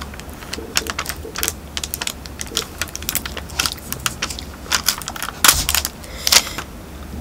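A folded paper spoon scraping chocolate mousse off a thin clear plastic lid, giving irregular clicks and crackles of the plastic, with two louder ones near the end.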